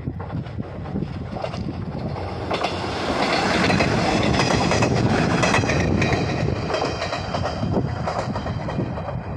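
Diesel railcar on the Hanawa Line passing close by, its wheels clattering over the rail joints along with the running noise of the train. It grows loud about three seconds in and fades as the train moves away.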